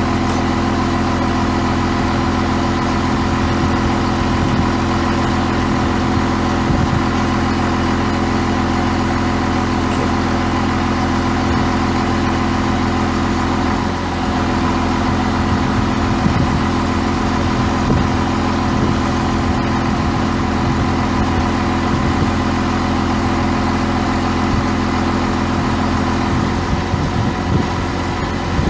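International DT466 7.6-litre straight-six turbo diesel idling steadily, with a brief change in tone about halfway through and again near the end.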